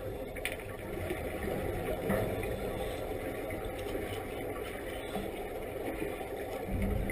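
Steady low underwater rumble and hiss, as picked up by a camera underwater, with no clear single event.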